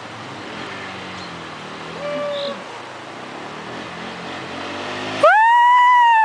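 Quad ATV engines running over the rush of a fast shallow river. Near the end comes a loud, drawn-out yell whose pitch rises, holds and then slides down.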